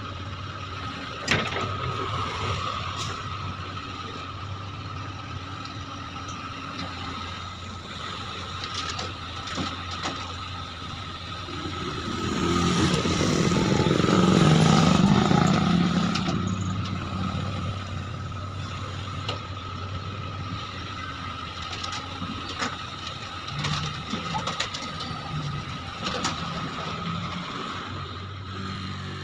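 Backhoe loader's diesel engine running with a steady high whine, swelling louder for a few seconds midway as it works harder, with a few scattered knocks and clanks.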